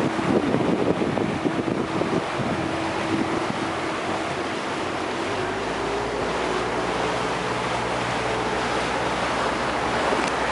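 Water taxi's engine running, with water rushing past the hull and wind on the microphone; about halfway through the engine note rises and a low rumble comes in.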